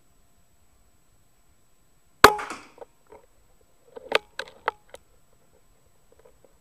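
A single rifle shot fired at a rat: one sharp crack with a short ring-out about two seconds in. About two seconds later comes a quick run of four or five sharp clicks and knocks.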